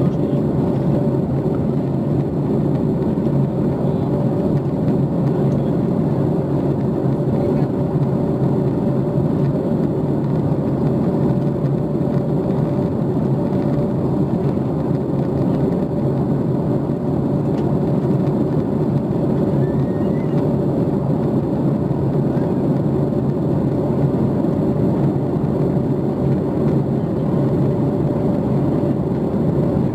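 Steady in-flight cabin noise of a Boeing 737 MAX 8 from a window seat over the wing: a constant rush of airflow with the even hum of its CFM LEAP-1B engines, unchanging throughout.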